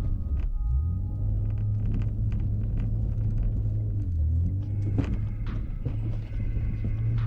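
Honda Ridgeline's V6 engine heard from inside the cab, a low steady rumble that rises and falls slightly in pitch as the truck crawls up a rocky trail. Scattered knocks and clicks come from the tyres and suspension over the rocks, the sharpest about five seconds in.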